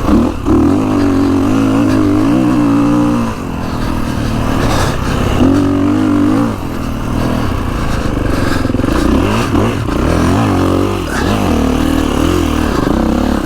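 Kawasaki KX450X's single-cylinder four-stroke engine being ridden through sand through turns, its revs climbing and dropping again and again.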